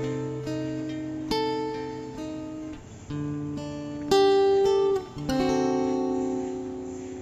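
Background music: slow plucked-string chords, each struck sharply and left to ring out.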